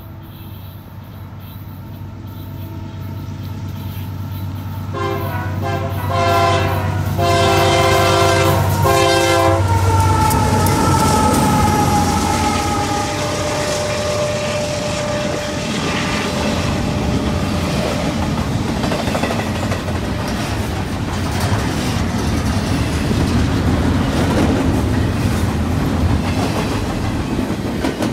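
A Union Pacific intermodal freight train approaches and passes. The diesel locomotives' engines grow louder, and about five seconds in the horn sounds a run of blasts, the last ones longer. As the locomotives go by, a whine drops slightly in pitch, then the double-stack container cars roll past with a steady rumble and wheel clatter.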